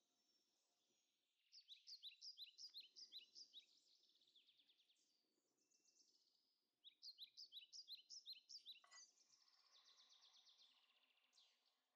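Faint bird song: two fast runs of repeated high chirps, one about a second and a half in and one near the middle, with quieter chirping between them.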